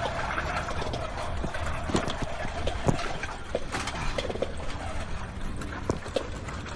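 Covered xylophone and other front-ensemble gear being rolled over a track, with a steady low rumble of wheels and scattered irregular knocks and rattles from the frame and equipment.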